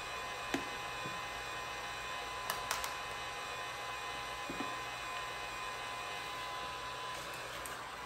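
Low steady room hum with a few light clicks and taps: one about half a second in, a quick cluster of three around the two-and-a-half-second mark, and one more a couple of seconds later.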